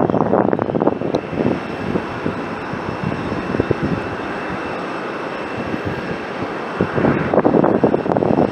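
Boeing 787-9 airliner's jet engines: a steady rush with a faint thin high whine, overlaid by an irregular rough crackle that grows louder about seven seconds in.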